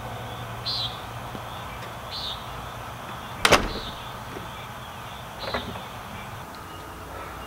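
A glass-paned French door swung shut, latching with one sharp bang about halfway through, followed by a smaller knock about two seconds later. A few faint high chirps sound over a low background hum.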